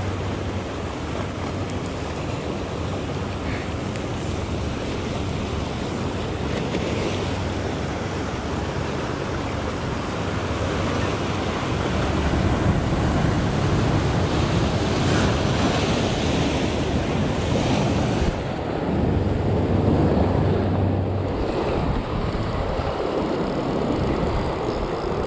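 Ocean surf surging and washing over rocks close by, with wind rumbling on the microphone. The surf grows louder about halfway through.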